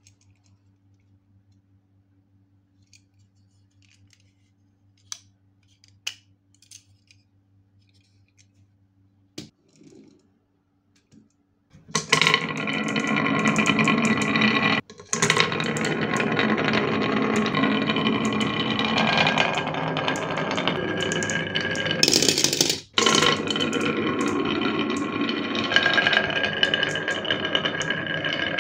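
Faint clicks over a low hum, then, about twelve seconds in, glass marbles start rolling and clattering down a carved wooden zig-zag marble track, loud and continuous with two brief breaks.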